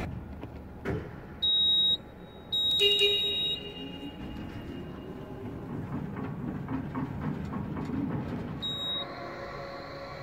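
Warning beeper of a Crown TSP very-narrow-aisle warehouse truck sounding in high, steady beeps: a short one, a longer one soon after, and a brief one near the end, over the low hum of the truck.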